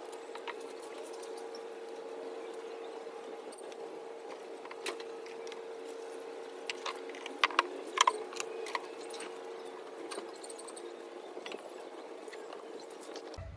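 Faint steady buzzing hum that fades out about halfway through, with a quick cluster of light clicks and taps a little past the middle.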